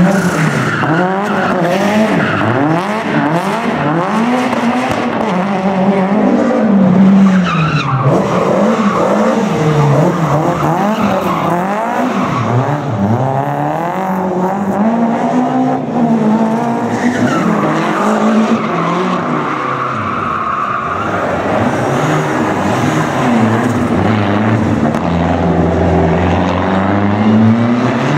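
Rally car drifting, its engine revving up and down again and again as the tyres squeal and skid.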